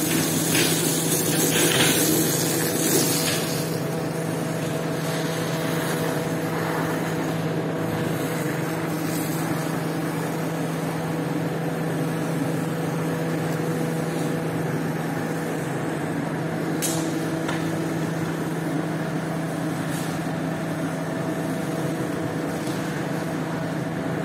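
A machine motor running steadily: a constant low hum with fainter higher tones over an even hiss, and a single faint click about seventeen seconds in.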